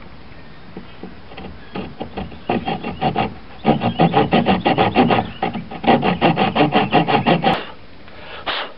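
Small hand camp saw cutting a groove into the end of a wooden hatchet handle, in quick, short back-and-forth strokes. The sawing starts about two and a half seconds in, pauses briefly midway, and stops near the end. The groove is being cut to take a wedge.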